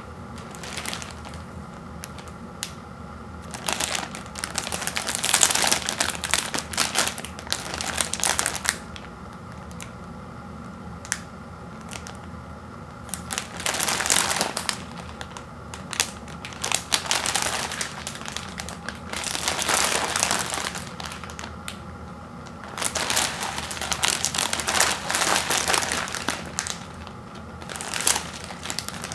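Plastic packaging of an instant noodle pack crinkling in repeated handfuls as it is handled and opened, with pauses between.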